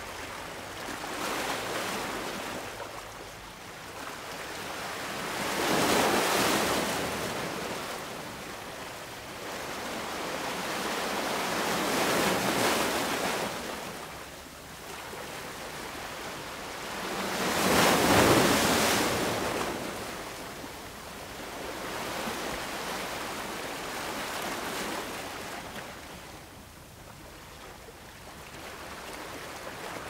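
Ocean surf: waves breaking and washing up the shore, swelling to a crash and fading back. The three biggest come about six seconds apart, followed by smaller, gentler swells.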